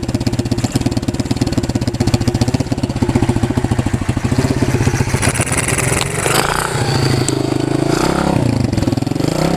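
A 110cc four-stroke single-cylinder pit bike engine running just after a cold start, idling steadily at first, then its speed wavers from about six seconds in, dipping and picking up again near the end. The uneven running is what the rider puts down to the engine being really cold.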